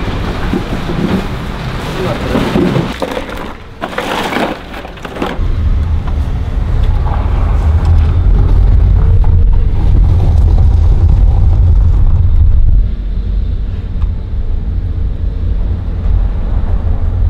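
Low rumble inside a moving car, starting about five seconds in and easing after about thirteen seconds. Before that, mixed noise with indistinct voices.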